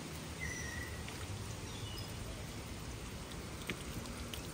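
Small garden fountain: thin streams of water from a bronze statue splashing steadily into a round pool, with a few faint high chirps.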